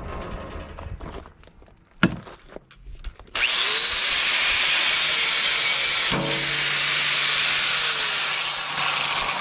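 Handheld angle grinder starting up about three and a half seconds in and grinding steel on a truck chassis frame: a loud, steady hissing whine. A single knock comes before it, about two seconds in.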